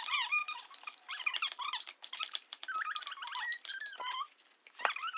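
Utensil stirring slime in a mixing bowl: irregular clicks and scrapes with repeated high squeaks.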